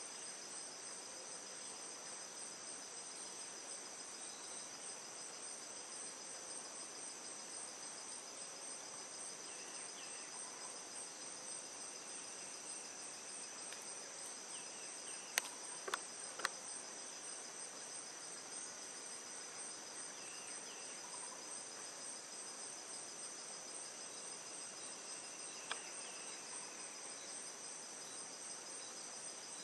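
Steady, high-pitched chorus of insects buzzing, with a few faint short bird chirps. Several sharp clicks stand out around the middle and once more near the end.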